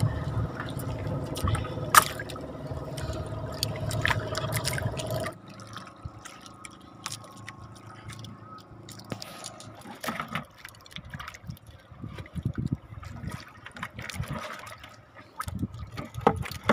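Water dripping and splashing in small irregular clicks and splashes. It follows a steady low hum that cuts off abruptly about five seconds in.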